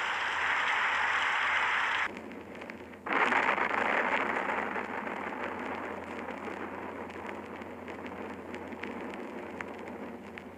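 Steady heavy rain, a dense hiss with fine crackle. It drops away suddenly about two seconds in and comes back louder a second later.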